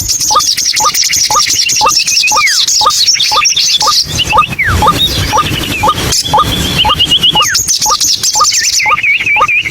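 White-breasted waterhen calling: a repeated short rising note, about two to three a second, with other birds chirping and whistling higher over it.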